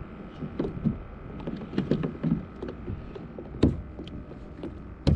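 Scattered small knocks and clunks against a kayak hull, over a low steady background of water and wind; one sharper knock a little after halfway and another near the end.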